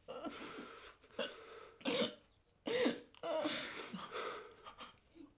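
A person crying: a handful of choked, breathy sobs and gasps in uneven bursts.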